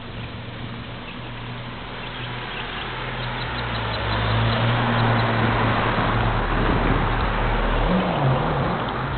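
A motor vehicle driving past: engine hum and road noise build up over a few seconds, stay loudest for a while, then ease off near the end.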